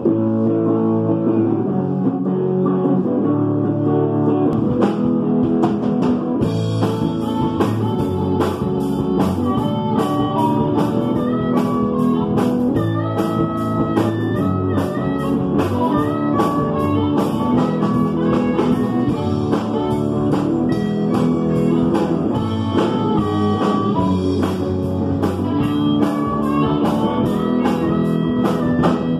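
Live band playing on drum kit, electric bass and electric guitar, with the cymbals and full drum beat coming in about six seconds in.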